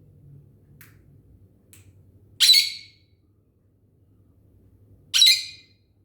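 A bird squawking twice, about two and a half seconds apart, each call short and loud.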